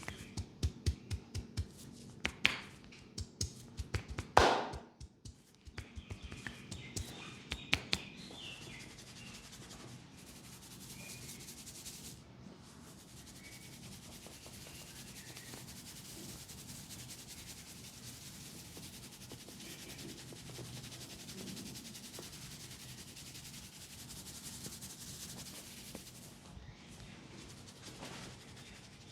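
A barber's hands at work in a head and neck massage: a run of quick, sharp hand strikes, the loudest about four and a half seconds in, then steady rubbing of hands over skin and hair for the rest.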